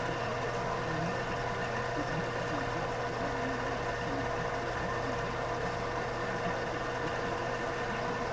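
Grizzly G0602 metal lathe running steadily, a constant hum with a steady tone, with a faint radio voice underneath.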